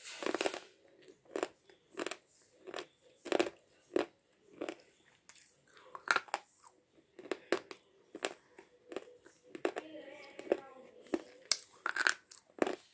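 Jeevan-brand slate pencil being chewed: short, sharp crunches of the hard chalky stick breaking between the teeth, about one or two a second.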